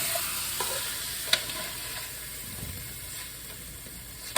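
Chicken frying in oil in a wok, a steady sizzle that slowly fades, with a couple of sharp clinks of a utensil against the pan.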